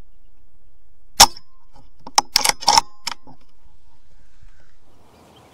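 A single sharp shot from a .22 BSA Super10 pre-charged air rifle about a second in, the loudest sound. About a second later comes a quick cluster of sharp clicks and rattles.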